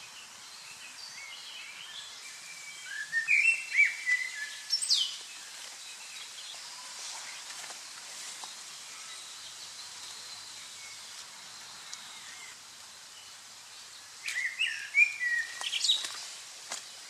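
Small songbirds singing outdoors: two bursts of quick chirping phrases with sliding notes, one a few seconds in and another near the end, over a steady faint hiss of background noise.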